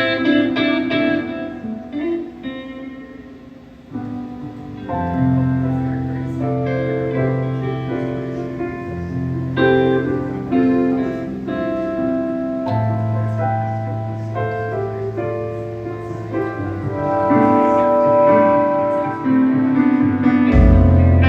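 Live band music: held guitar and keyboard notes over a low bass line, dipping briefly about three seconds in before the bass comes back in.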